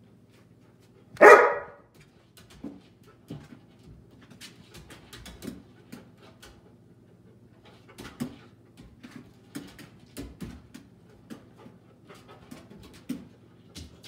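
A large shaggy dog gives one loud bark about a second in, then scattered light clicks and taps of its claws on the tile floor and countertop as it stands up against the counter.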